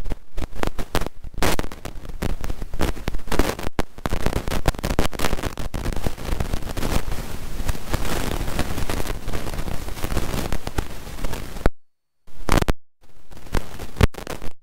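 Crackling, popping static on the cockpit radio and intercom audio feed, dense and irregular. It cuts out to dead silence twice, briefly, near the end.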